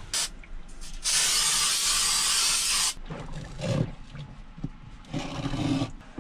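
Aerosol can of spray adhesive hissing in one steady spray for about two seconds, then cutting off. A couple of shorter, softer noises follow.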